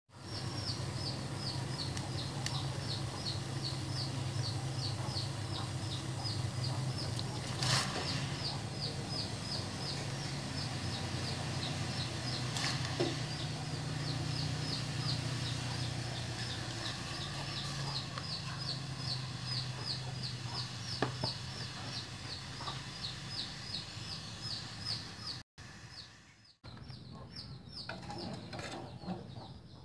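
A pot of water boils steadily with a low hum, while a bird chirps rapidly and continuously, about five short high chirps a second. The chirping stops near the end.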